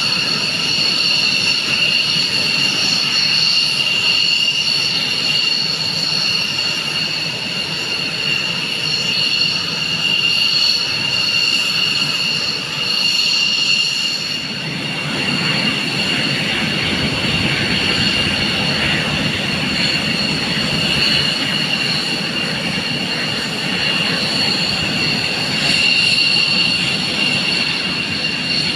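Steady high-pitched whine of military jet aircraft engines running on the ground, over a continuous rush of engine noise that grows fuller and lower from about halfway through.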